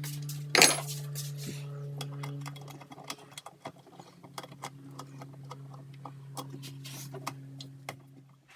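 Scattered metallic clinks and clicks of hand tools on metal while engine mounts and fittings are being unbolted, with a sharp knock under a second in. A steady low hum runs beneath them and stops just before the end.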